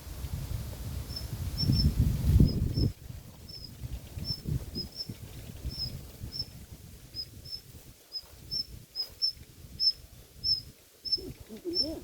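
Low rustling and thumping, loudest in the first three seconds and then dying down, under a short high chirp that repeats about twice a second throughout.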